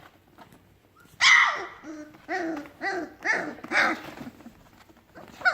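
Three-week-old puppy giving short, high yips and barks: one loud call about a second in, then four quick ones about half a second apart, each rising and falling in pitch, and another near the end.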